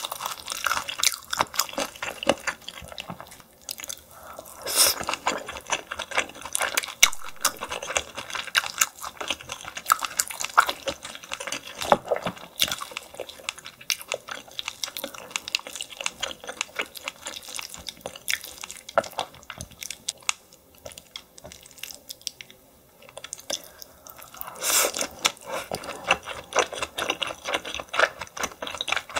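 Close-miked wet chewing and mouth sounds of a person eating steamed yellow stingray: sticky smacks and dense clicks, with a few brief louder bursts.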